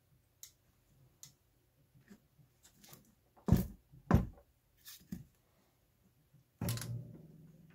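Handling knocks and taps as the opened cordless drill's plastic housing is moved and set down on a hard work surface. There are several short sharp knocks, the loudest two about halfway through, and near the end a heavier thud that rings on for about a second.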